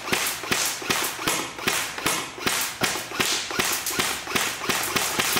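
Airsoft rifle, a Steyr AUG replica, firing a rapid, continuous stream of shots.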